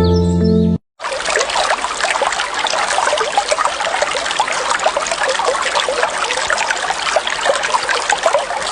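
Running water trickling and babbling steadily, after a few seconds' end of soft music chords and a brief dropout about a second in.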